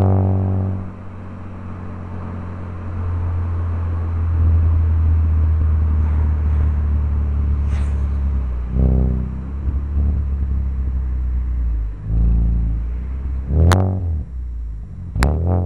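BMW E46 M3's straight-six through a Megan Racing exhaust, dropping from high revs in the first second to a steady low cruise, then rising briefly in revs a few times as the car slows. Two sharp cracks sound near the end.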